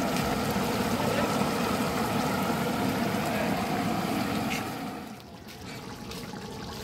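Steady rumbling, bubbling noise of a large pot of pepper chicken gravy cooking, dropping to a quieter level about five seconds in.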